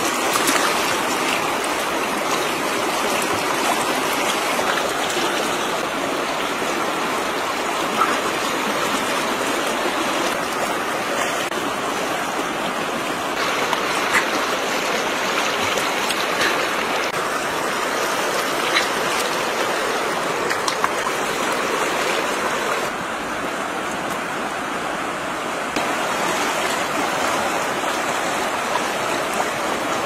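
Steady running water with a continuous rushing sound, broken by a few faint clicks now and then.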